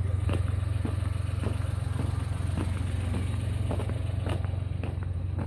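A vehicle engine idling steadily, as a constant low hum, with scattered light clicks and footsteps on pavement.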